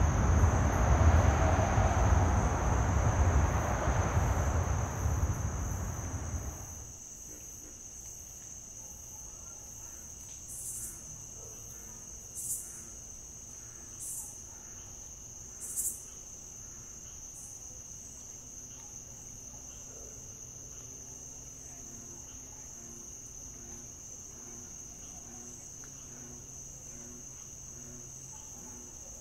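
Crickets trilling steadily in a high, continuous tone, with a few short sharper chirps between about ten and sixteen seconds in. For the first six seconds a loud low rumble covers the trill, then dies away.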